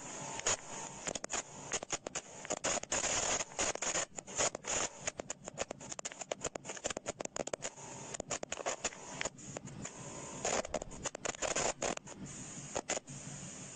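Choppy crackling static full of rapid clicks and drop-outs, a fake network-glitch sound that imitates an online call breaking up over a poor connection. A faint steady whine comes and goes under the crackle.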